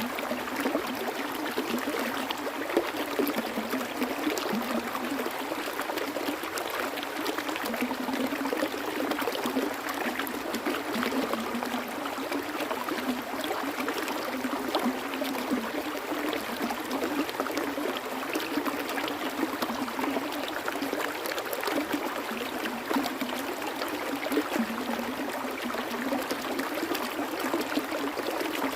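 Stream water running steadily over stones, a continuous splashing babble with small trickles and gurgles.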